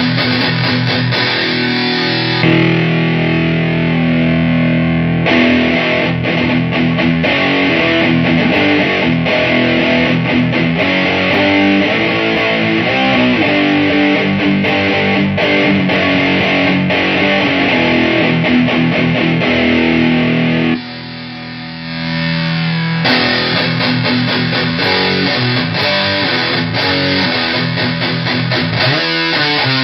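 Heavily distorted electric guitar riffing through a Shroot overdrive driving a 77 Fuzz Blender fuzz pedal, played into Hughes & Kettner Black Spirit 200 and Orange Super Crush 100 amp heads. The tone changes abruptly several times as the signal is switched between the two amps, and the playing is briefly quieter about 21 seconds in.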